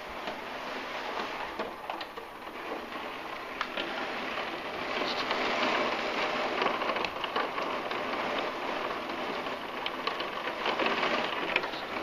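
Heavy rain pouring down in a downpour, a dense steady hiss that grows louder about five seconds in.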